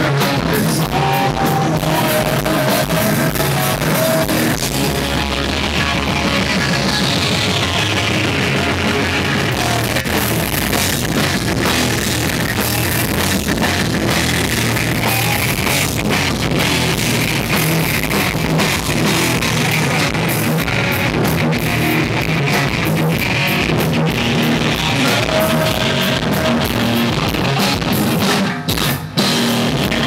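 Rock band playing live: drum kit, electric bass and guitar, with a male singer on a microphone. The music drops out briefly near the end.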